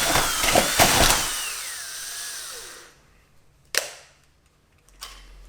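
Power drill running under load, then released: its motor's high whine winds down, falling in pitch and fading over about two seconds. Two sharp knocks follow, near the middle and near the end.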